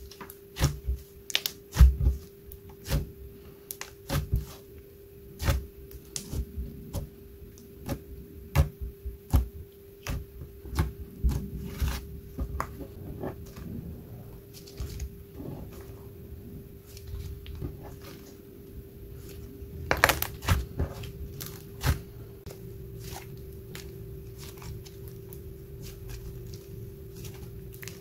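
Hands pressing, poking and stretching a soft, air-filled latex slime, giving irregular sticky clicks and small air-bubble pops that thin out after about twenty seconds. A faint steady hum runs underneath.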